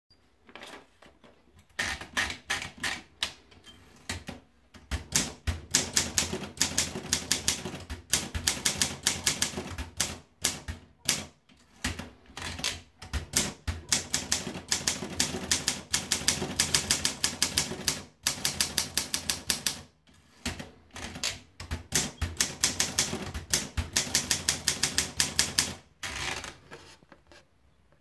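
Olympia SM3 manual portable typewriter being typed on: rapid runs of sharp keystrokes with the typebars striking the platen, broken by short pauses.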